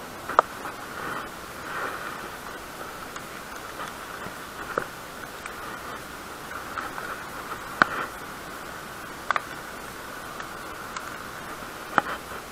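Steady hiss broken by about five sharp, short knocks a few seconds apart, from fishing gear being handled against a concrete bridge railing; the last knock comes as a rubber-capped handle is set down on the railing.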